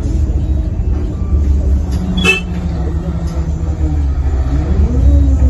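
Airport shuttle bus engine running with a heavy low rumble, heard from inside the bus. Its note dips and then rises near the end as the bus pulls away again. A short horn toot sounds about two seconds in.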